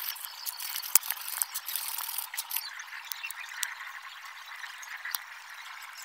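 Wire brush scraping rust off a refrigerator compressor's steel shell: a scratchy rasp with sharp clicks from the strokes. It dies down about two and a half seconds in, leaving fainter scraping and handling noise.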